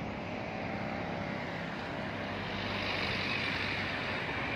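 Street traffic: vehicle engines running with a steady low hum and road noise.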